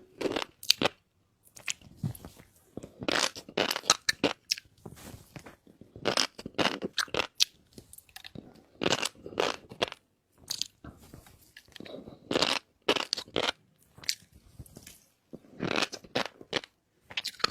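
A person eating shrimp with fish roe sauce, close-miked: chewing and biting in bursts of one to two seconds, with short pauses between mouthfuls.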